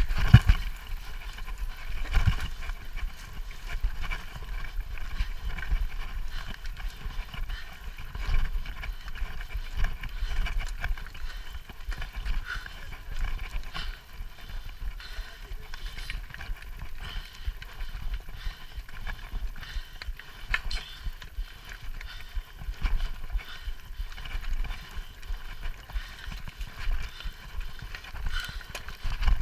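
Mountain bike ridden over rough, stony grass: irregular knocks and rattles from the tyres and frame jolting over rocks, over a steady low rumble.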